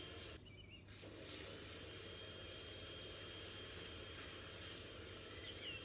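Quiet outdoor garden ambience: a steady low rumble and hiss, with a faint steady high tone in the middle and a bird chirping near the end. The background briefly drops out about half a second in.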